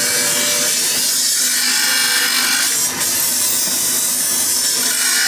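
Workshop power tool running steadily with a loud, hiss-like noise while sand-cast brass pieces are cleaned, briefly dipping about three seconds in.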